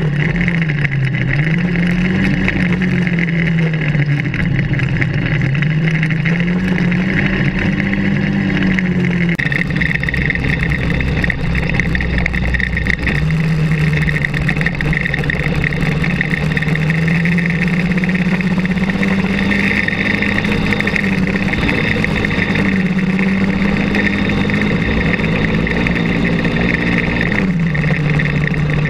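Kart cross buggy's engine running hard, heard onboard, its pitch swinging up and down repeatedly in the first several seconds as the throttle is worked, then holding steadier and higher later on, over a constant rushing noise.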